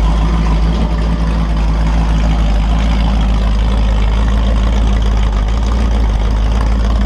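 Holden 355 stroker V8 on an engine stand running at a steady speed through open header pipes, a loud even beat with no change in pace. It is a newly built engine on its bench test, bedding in the new cam and lifters.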